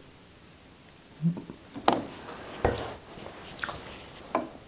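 Hands working a laptop: a soft knock, then about four sharp clicks from its keys or touchpad spread over the last three seconds, after a quiet first second.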